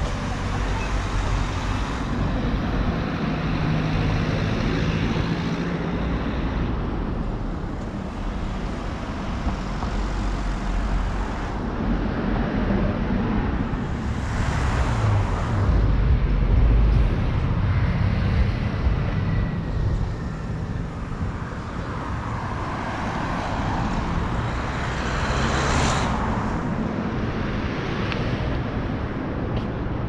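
Road traffic: cars passing by one after another over a steady low rumble, with two louder pass-bys about halfway through and near the end.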